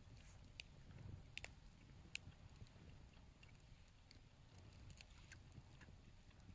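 Near silence: a low background rumble with a few faint, sharp clicks and soft eating sounds from people chewing food.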